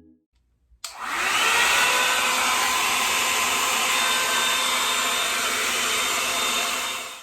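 Revlon One Step hair dryer and styler, a paddle-brush blow dryer, switched on about a second in: its motor whines up to speed, then it runs steadily with a rushing of air until it stops abruptly near the end.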